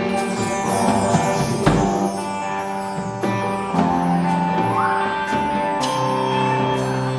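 Band music: held guitar chords with drums and cymbal hits.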